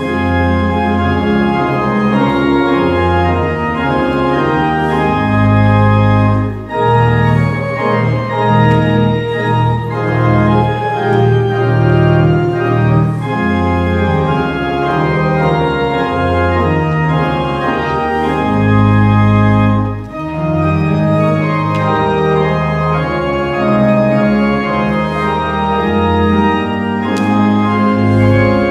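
Church organ played with sustained chords over low bass notes, with two brief breaks between phrases.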